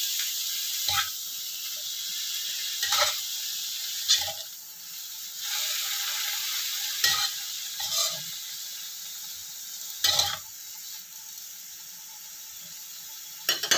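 Mustard greens and sausage sizzling in a hot wok while a metal spatula turns them, scraping and knocking against the pan about six times. The sizzle dies down somewhat over the last few seconds.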